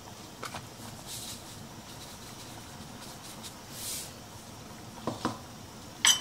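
Saucepan of chicken broth, onion and spices at a rolling boil, bubbling steadily with scattered pops, and a few sharper clicks near the end.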